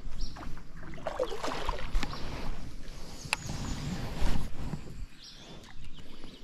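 Water noise and handling sounds around a fishing kayak on a river, with a few sharp knocks, louder for the first five seconds and then quieter.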